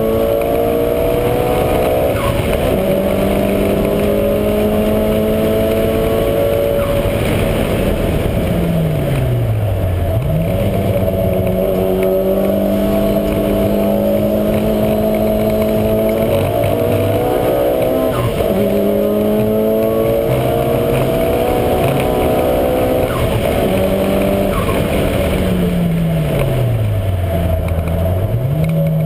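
Mitsubishi Lancer Evolution V's turbocharged four-cylinder engine at full throttle, its pitch climbing and dropping back in steps as it shifts up through the gears every couple of seconds. Twice the revs fall away as the car slows, then it pulls hard again.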